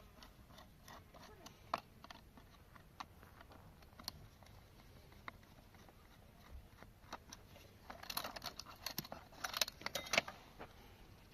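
Small metal parts of an old alarm clock clicking and clinking as they are handled. There are scattered single clicks, then two busier flurries of rattling in the last few seconds.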